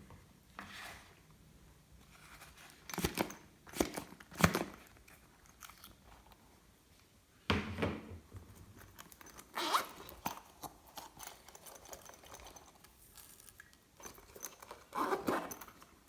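Irregular crunching, crackling and tearing noises in short separate bursts with quiet gaps between them, from hands working with slime-making materials.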